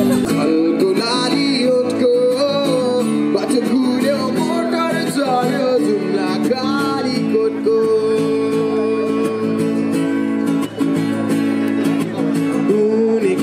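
Acoustic guitar strummed live with a man singing a melody into a microphone, amplified through a small street amplifier.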